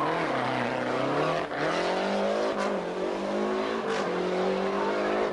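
Lancia Delta Integrale rally car's turbocharged four-cylinder engine accelerating hard away, the revs climbing and dropping back at three upshifts, each shift marked by a short sharp break in the note.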